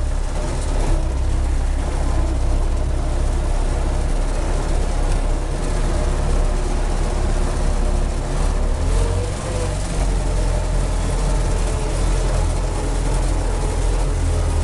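MTZ-50 tractor's D-50 four-cylinder diesel engine running steadily while the tractor drives, heard from inside the cab.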